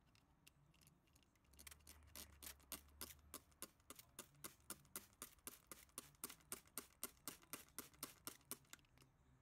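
Hand trigger spray bottle misting plants and glass in a small terrarium: quick repeated squirts, about four a second, starting about a second and a half in and stopping just before the end, with a few faint trigger clicks before the spraying starts.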